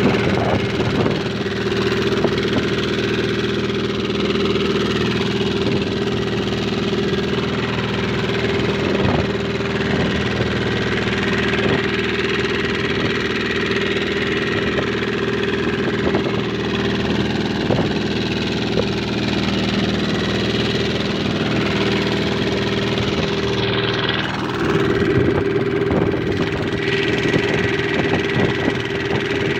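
A fishing boat's engine running steadily while trolling, a constant drone with a strong low hum, over the rush of water along the hull.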